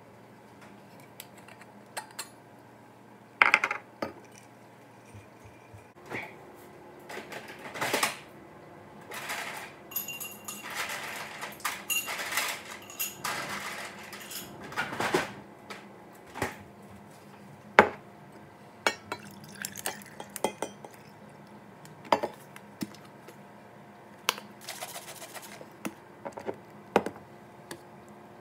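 Small hard objects clinking and clattering as they are handled and set down: a long string of sharp knocks and clinks, busiest and most continuous in the middle.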